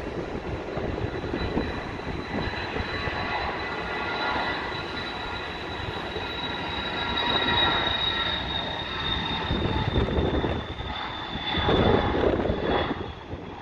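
Dassault Falcon 2000 business jet's two CFE738 turbofans at takeoff thrust during the takeoff roll: a steady high turbine whine over a rough jet rumble. The whine drops slightly in pitch in the second half, and the rumble is loudest near the end as the nose lifts.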